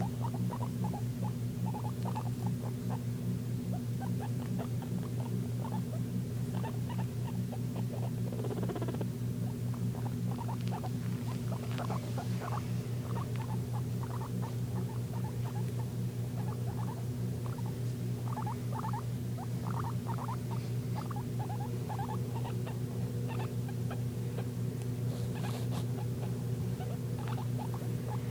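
Guinea pig wheeking: many short, quick squeaks coming in clusters, over a steady low hum.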